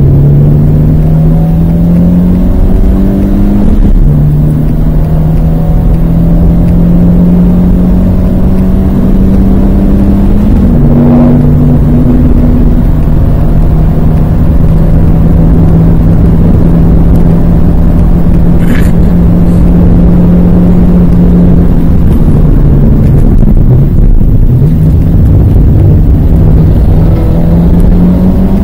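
Renault Twingo's 1.2-litre four-cylinder engine heard from inside the cabin, driven hard on track. Its revs climb, drop with an upshift about four seconds in, and climb again. They then hold steady at speed for a long stretch, fall away under braking near the end, and pick up again.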